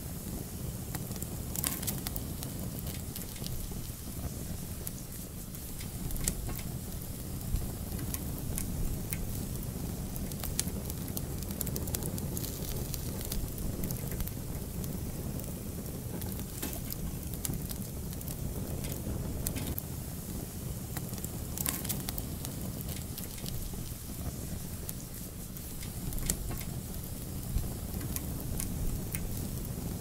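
Wood fire crackling, with irregular sharp pops and snaps over a low steady rumble of the flames.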